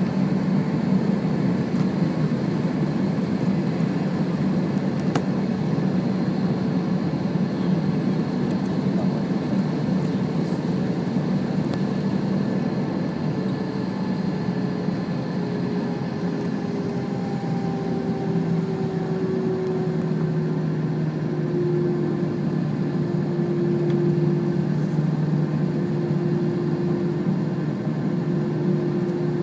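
Airbus A321 cabin noise: the jet engines running with a steady hum and whine, heard from inside the cabin. Its tones ease lower about halfway through and then hold steady.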